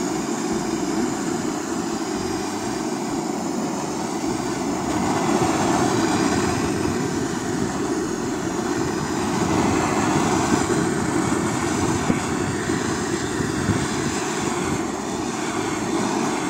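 Handheld gas torch burning with a steady hiss, its flame held against a wooden block.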